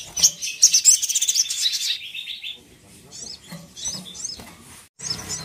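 Brown-throated sunbird (sogok ontong) singing: a fast, high twittering trill for about two seconds, then scattered sharp chirps, and a new trill starting near the end.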